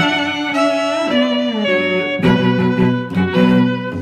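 Instrumental music led by bowed strings, with sustained notes that glide in pitch in the first half and more sharply attacked notes from about two seconds in.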